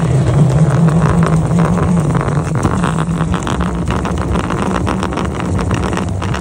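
Spool of string spinning fast on a metal rod, a steady whir with rapid rattling clicks, as a shop vac at the far end sucks the string and a plastic bag through underground conduit.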